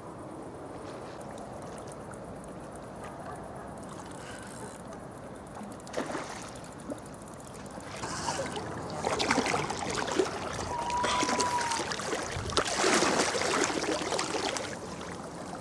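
Water splashing and sloshing at the edge of the pond as a hooked sturgeon is drawn in to the bank, starting about halfway through and getting louder and busier toward the end. A short whistle-like call sounds once in the middle of the splashing.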